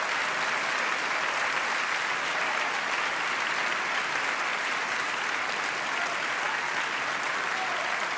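Concert audience applauding steadily between pieces.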